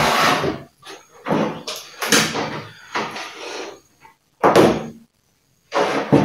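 Objects being handled and put down on a wooden table, a series of irregular knocks and clunks. The loudest come near the start and about four and a half seconds in.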